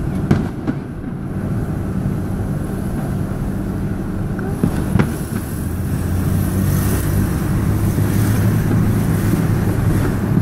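Car engine running and road noise heard from inside the moving car, a steady low hum. Two sharp bangs stand out, one just after the start and one about halfway through.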